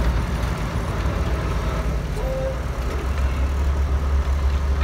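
Semi truck's diesel engine running with a steady low rumble.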